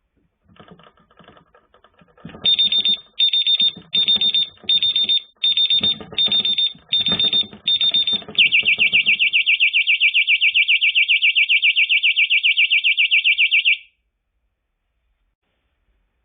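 Earthquake alarm going off: a rattle of knocks starts, then about two seconds in the alarm gives eight short high beeps over the rattling, then switches to a fast warbling high tone that cuts off suddenly.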